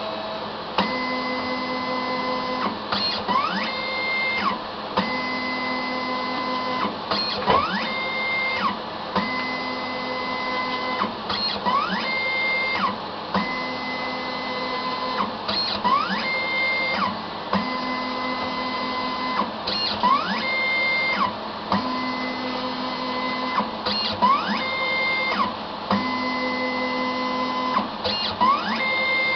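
Honeybee 963 crystallisation robot's motors running through a cycle that repeats about every four seconds: a steady whine, then a quick rising whine with clicks.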